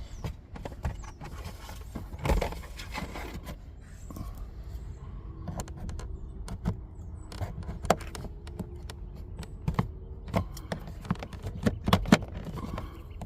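A pry tool scraping and clicking against the plastic interior door trim of a 2013 Nissan Altima as a panel is pried loose. A series of sharp clicks and scrapes, loudest near the end.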